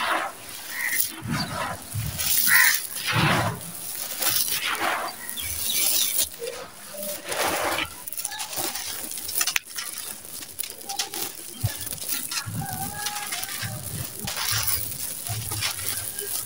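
Hands digging into and crumbling dry sand-cement mix with small stones: gritty crunching and grains pouring through the fingers, in uneven bursts.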